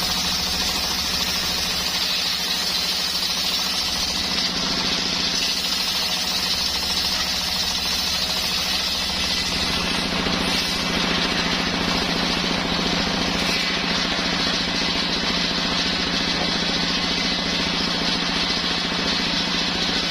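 Homemade engine-driven circular sawmill running steadily: the engine's fast even chugging under the steady sound of the saw.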